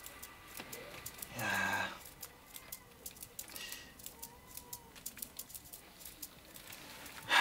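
Chickens clucking in the background, with one louder call about a second and a half in and a few fainter ones after.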